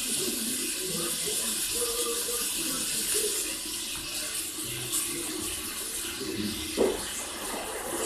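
Water running steadily from a tap, with faint voices underneath.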